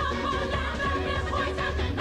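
Upbeat pop music for a stage production number, with a singer's voice over a steady, pulsing bass beat.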